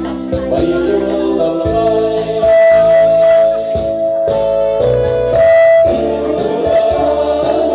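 Loud dance music with a steady bass beat and a held melody line.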